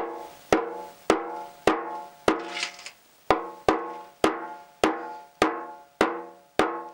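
Small ball-pein hammer tapping the bottom of an empty steel Yamaha XJ900S Diversion fuel tank, about two even taps a second, the tank ringing briefly after each. He is denting the rusty pinhole inward so the putty can fill it.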